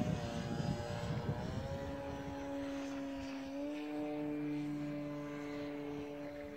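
Electric motor and propeller of a GeeBee R3 radio-controlled model plane in flight: a steady whine that rises slightly in pitch partway through and falls away at the very end.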